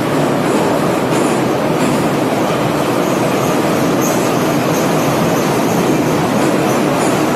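Saint Petersburg metro train heard from inside the car while it runs: a loud, steady noise of wheels on rail and the running gear.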